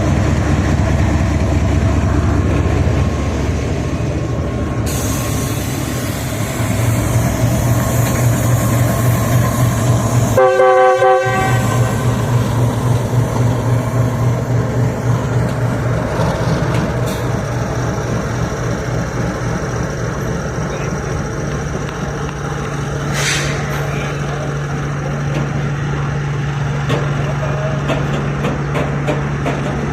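Diesel locomotive engine running with a steady low drone, its note shifting a couple of times, and one short horn blast about ten seconds in.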